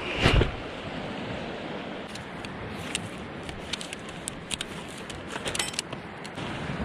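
A heavy thud at the start, then steady rushing wind and surf with a scatter of light clicks and clinks from about two seconds in.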